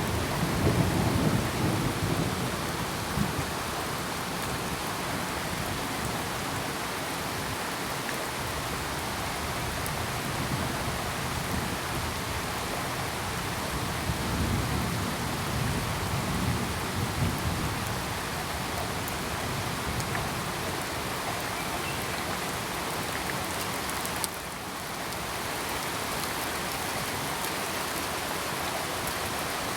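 Steady rain hissing, with low rolling rumbles of thunder in the first few seconds and again around the middle. The hiss dips briefly about three-quarters of the way through.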